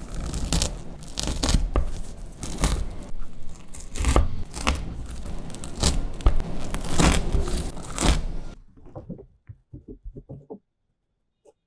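Snack packaging being torn and crinkled, a dense crackle full of sharp snaps. It thins out into a few separate crackles about eight and a half seconds in and stops shortly after ten seconds.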